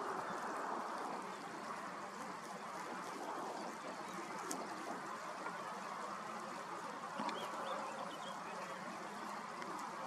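Steady background hiss with a few faint, distant bird calls.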